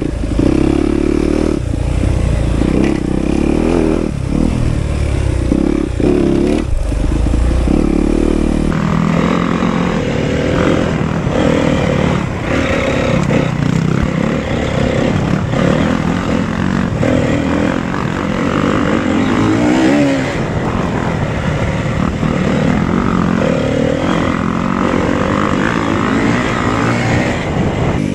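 Four-stroke 250cc motocross bike running hard on a dirt track, its engine revs rising and falling as it accelerates and shifts. The sound changes character about nine seconds in.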